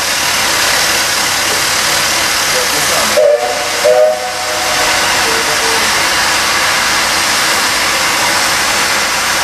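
Steam locomotive's safety valve popped off, venting steam in a loud, steady hiss until boiler pressure drops enough for it to reseat. The hiss breaks briefly about three seconds in, with a few short tones, then carries on.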